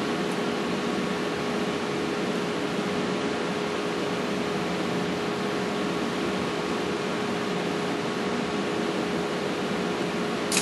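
Steady room noise: an even hiss with a constant low hum tone, and one short click near the end.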